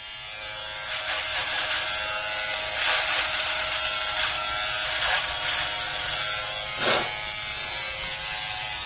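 Electric shaver buzzing steadily as it shaves off a moustache, with a few brief louder surges, a sharp one about seven seconds in.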